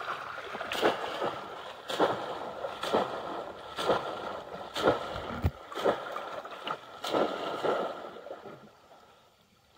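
Bamboo polo fish trap plunged again and again into shallow pond water, a splash about once a second with sloshing water between. The splashing dies away near the end.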